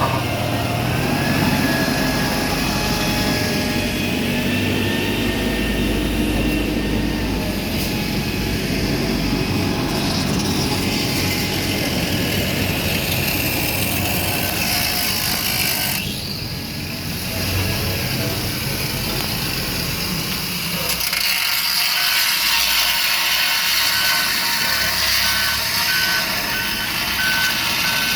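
Heavy diesel construction vehicle running, its engine and machinery noise continuous; about three-quarters of the way in a reversing alarm starts beeping at a steady rate.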